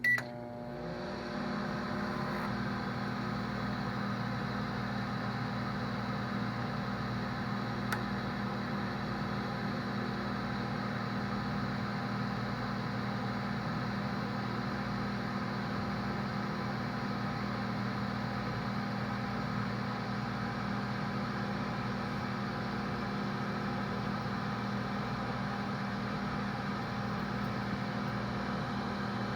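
Microwave oven starting with a short beep and click, then running with a steady electrical hum and fan whir that settles within a second or two.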